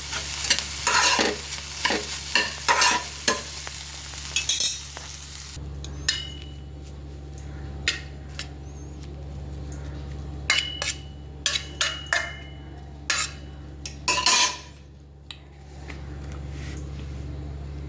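A spatula scraping and clattering against a pan of frying food, with sizzling, for the first four or five seconds. Then the stirring stops, leaving scattered taps over a steady low hum.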